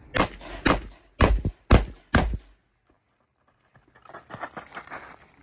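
Five gunshots from a shouldered long gun in quick succession, about half a second apart, then a short gap followed by softer noise and small clicks.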